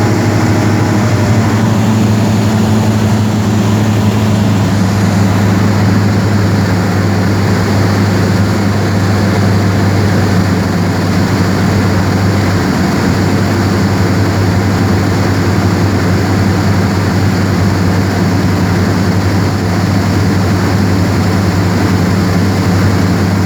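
Cessna 172R's four-cylinder Lycoming engine and propeller droning steadily in flight, heard from inside the cockpit, with a strong low hum over a wash of airflow noise.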